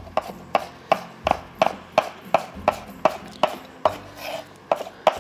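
Kitchen knife chopping turnip finely on a cutting board in steady, even strokes, about three a second.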